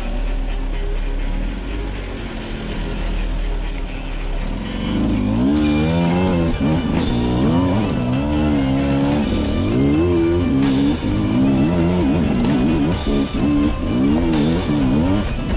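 Dirt bike engine running. About four and a half seconds in it starts revving up and down again and again as the throttle is worked.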